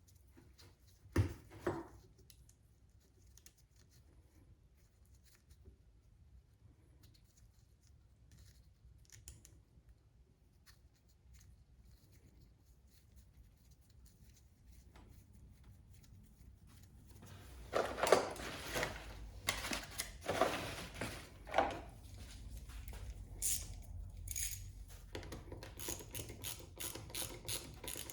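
Small metal clicks and scraping of hand tools as a grease fitting is threaded into a new driveshaft U-joint cap. It is mostly quiet, with two sharp clicks about a second in, then a busy stretch of clicking and scraping in the second half. It ends in a run of quick, even clicks.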